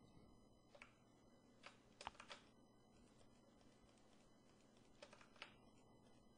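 A handful of faint computer keyboard clicks, a few keypresses scattered between long near-silent gaps.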